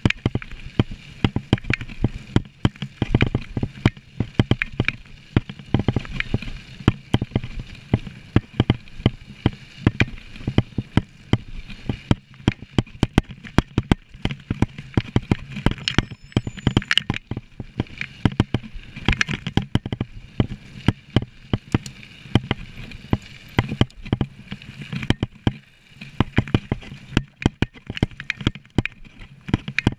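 Mountain bike clattering and rattling over a rough trail: a dense, irregular run of knocks and clicks.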